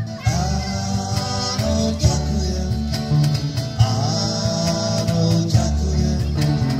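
A live band playing: strummed acoustic guitar and electric guitars over a steady beat, with a sung melody line.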